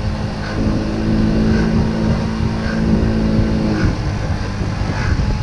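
Scooter engine running steadily under way; about four seconds in, the engine note drops.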